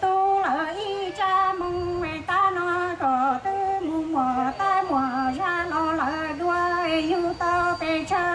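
A woman singing a Hmong love song through a microphone and PA, her voice in long, wavering sung phrases.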